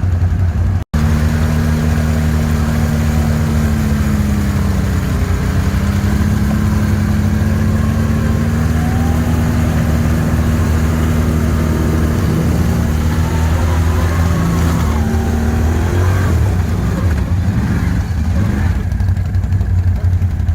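ATV engine running under way, a steady deep drone whose pitch rises and falls a little with the throttle. The sound drops out for an instant just under a second in.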